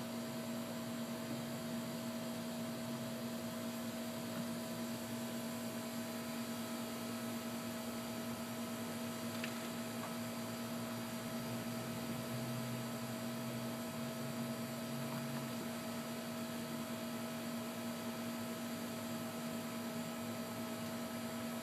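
Steady electrical or machine hum over an even background hiss, unchanging throughout.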